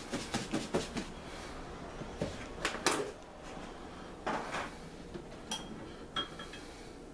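A piece of chicken being shaken in a lidded plastic margarine tub of seasoned flour: a quick rattle of soft knocks for about the first second. Then a few separate clunks and taps as the tub is set down and handled, the loudest about three seconds in.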